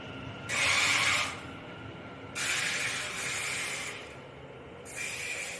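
Three sharp bursts of air hissing from a train's pneumatic air system, as it pulls away from the platform. The first, about half a second in, is the loudest; the others come about two and five seconds in.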